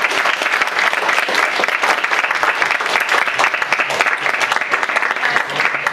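Audience applauding: many people clapping together in a dense, steady patter that breaks off near the end.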